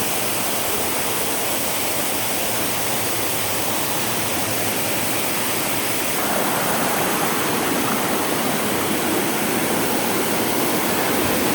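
Waterfall rushing close by, a steady, loud wash of water noise that grows a little louder about halfway through.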